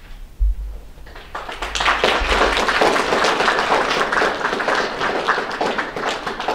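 Audience applauding, building up about a second and a half in and thinning out at the end. A single low thump comes just before it.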